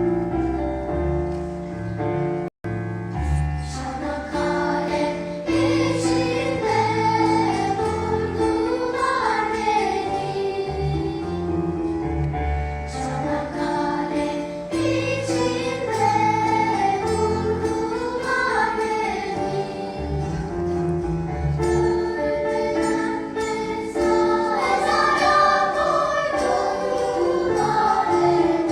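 Voices singing a song together, choir-like, over instrumental accompaniment with sustained bass notes. The sound cuts out for a split second about two and a half seconds in.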